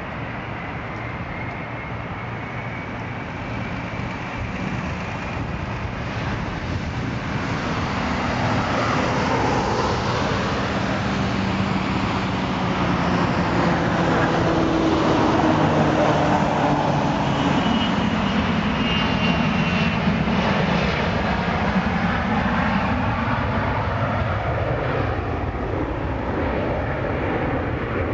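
Bombardier Global 6000 business jet's two rear-mounted Rolls-Royce BR710 turbofans at takeoff power, growing louder as the jet accelerates down the runway toward the listener. Its engine tones and whine slide down in pitch as it passes at its loudest, and the noise carries on strongly as the jet lifts off and climbs away.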